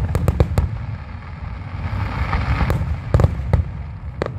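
Aerial fireworks bursting: a quick cluster of sharp bangs at the start, a hiss about two seconds in, then more scattered bangs, over a steady low rumble.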